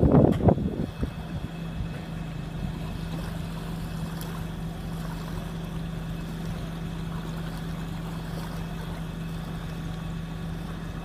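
An engine running steadily at idle, a constant low hum. A brief loud rumbling noise comes in the first second.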